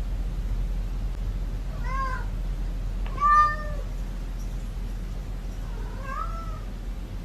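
A cat meowing three times, each call rising and falling in pitch; the middle call is the loudest. A steady low hum runs underneath.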